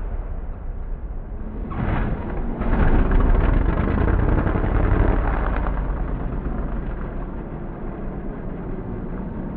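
Mud truck's engine running and revving as the truck lands from a jump and rolls over onto its roof, with a louder rough crashing noise about three seconds in that fades over the next few seconds.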